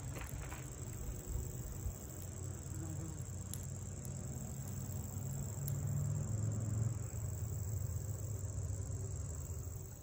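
A steady, high-pitched insect trill, one unbroken tone, over a low rumble that grows louder about six seconds in.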